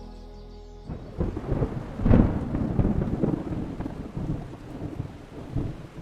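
Music cuts off about a second in, and thunder rumbles over steady rain. The loudest crack comes about two seconds in, then a long crackling roll.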